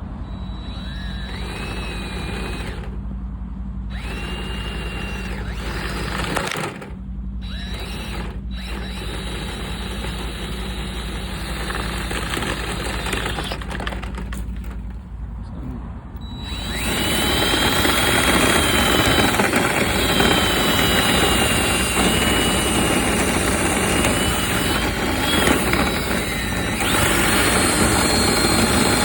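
Power drill turning a dryer vent cleaning brush on flexible rods inside the vent duct. It first runs in short spurts with brief stops, then runs steadily and louder for the second half, its whine wavering slightly in pitch as the brush meets the duct.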